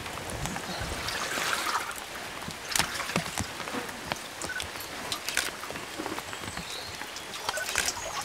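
Water trickling and splashing with scattered clicks and knocks as an Atlantic salmon is handled out of a water-filled trap tank into a wooden measuring trough, over a steady rushing hiss of water.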